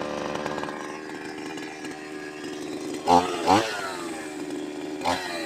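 Two-stroke chainsaw engine running just after starting, on baseline carburetor settings with the idle screw turned in to open the throttle, before the idle speed is set. It is revved briefly twice about three seconds in and once more near the end, each time rising and falling back.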